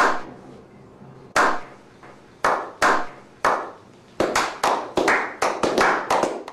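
A series of sharp, clap-like hits, each with a short echoing tail: a few spaced about a second apart, then quickening to about three a second near the end.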